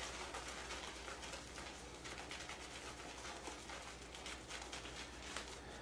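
Synthetic shaving brush working Palmolive shave cream into lather on a palm: a faint, continuous run of fine crackling ticks from the wet bristles and foam.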